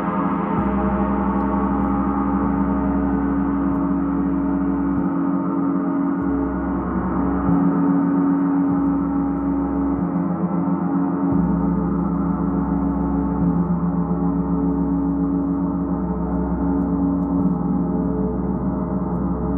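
Large gong played continuously with a felt-headed mallet: repeated soft strokes keep up a steady, sustained wash of many overlapping ringing tones.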